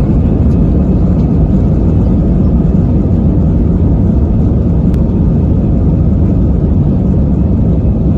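Airbus A320 cabin noise heard from a window seat over the wing: a loud, steady low rumble of the jet engines and rolling wheels as the airliner moves along the runway.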